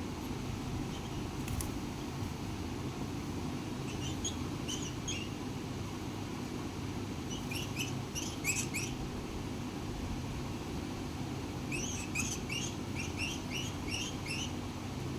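Yellow ringneck parrot chirping in three short runs of quick, high chirps, over a steady low background hum.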